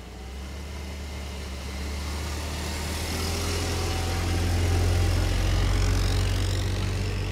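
Engine and tyres of a black BMW 3 Series (E36) sedan as it pulls away and passes close by, a low rumble growing louder to a peak about five seconds in, then easing slightly as the car moves off.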